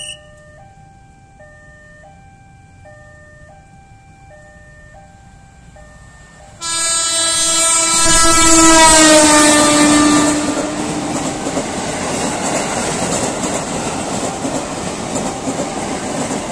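A level-crossing warning alarm repeats an electronic two-tone chime. About six and a half seconds in, a JR 205-series electric commuter train sounds a long horn blast that drops in pitch as it passes. The train's running noise then continues steadily.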